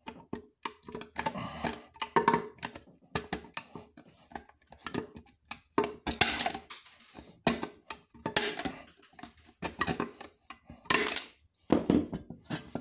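Old Jilson hand shears cutting through the pressed sheet steel of a Buddy L toy truck cab: a run of uneven, sharp metallic snips and crunches, with a few longer crunching cuts.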